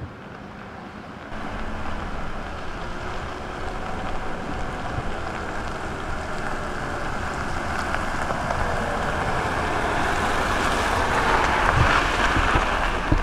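Pickup truck driving slowly over a gravel road, its tyres crunching on the gravel over a low engine rumble. It grows steadily louder as it approaches and is loudest as it passes close by near the end.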